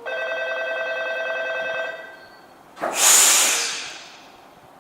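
Electric station departure bell ringing steadily for about two seconds before a stopped train leaves. About three seconds in comes a sudden loud burst of compressed-air hiss from the train, fading away over about a second.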